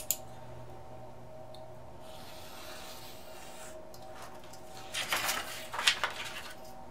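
A snap-off utility knife drawn along a steel ruler, slicing through a sheet of paper on a cutting mat: a faint scraping hiss, then louder paper rustling about five seconds in as the cut strip is pulled away.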